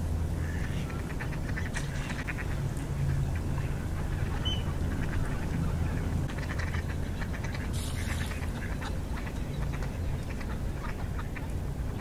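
Ducks quacking in several short runs of rapid calls, over a steady low rumble.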